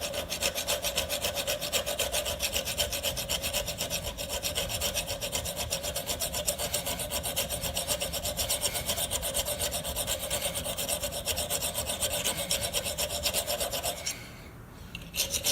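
A hand file rasping back and forth on the square end of a steel string trimmer drive shaft in rapid, even strokes, with a steady ring under them. The worn shaft end is being filed down to fit the trimmer's drive. The filing stops briefly about 14 seconds in and starts again near the end.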